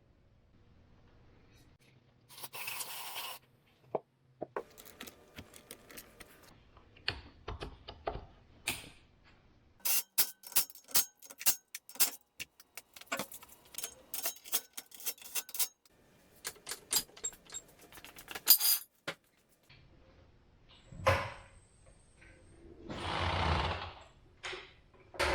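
Metal hand tools and parts clinking and clattering as they are handled: a long run of sharp clicks and knocks, thickest in the middle, with a short rustling swish near the start and another near the end.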